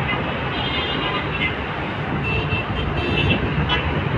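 Steady road traffic noise, with a few short high tones, like distant horn toots, about two to three seconds in.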